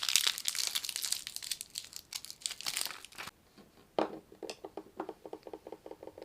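Plastic lollipop wrapper crinkling and tearing as it is unwrapped, dense and close for about three seconds. About four seconds in a sharp crackle starts a softer, quicker run of ticks lower in pitch.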